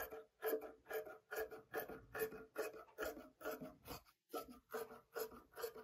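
Scissors cutting through stretch velvet knit fabric: a steady run of snips, about four a second, with a brief pause about four seconds in.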